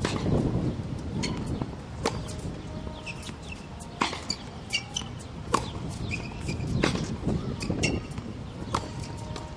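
Tennis ball struck by rackets in a baseline rally: five sharp hits, one every one and a half to two seconds, some nearer and louder than others, with short high squeaks between them.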